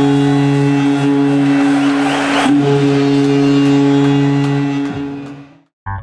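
Arena goal horn sounding in two long held blasts over crowd noise, then fading out about five and a half seconds in.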